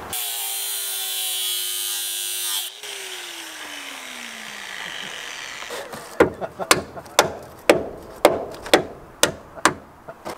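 A handheld power cutting tool whines at speed for about three seconds, cutting a notch into the car's old body repair, then is switched off and falls in pitch as it spins down. About six seconds in, a hammer strikes the sheet metal about nine times, roughly twice a second, pounding the cut section up so the new fender will sit.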